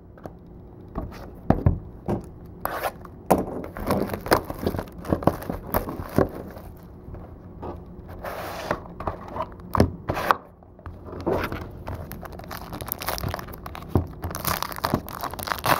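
Trading-card box and pack being opened by hand: plastic wrap tearing and crinkling, with scraping and clicking of cardboard and cards being handled. The crinkling is loudest about halfway through and again near the end.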